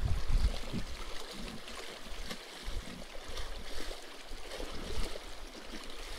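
Wind buffeting the microphone for the first half second, then small waves lapping and splashing against a rocky lakeshore.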